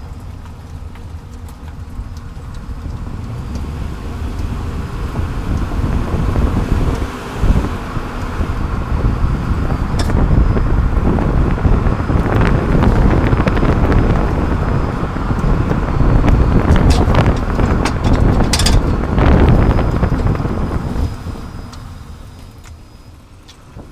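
Road, tyre and wind noise under a 30-series Toyota Prius, picked up near the left rear suspension, building as the car gathers speed and dying down near the end as it slows. A few sharp clicks or knocks stand out over it, around the middle and again a few seconds later.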